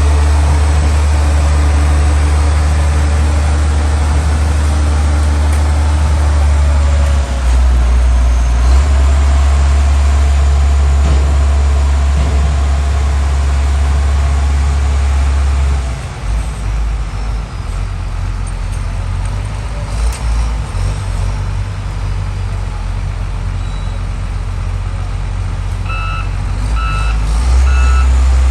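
Heavy diesel vehicle engine running steadily with a deep hum, its note shifting about a quarter and again about halfway through. Near the end a reversing alarm starts beeping at an even pace, about once a second.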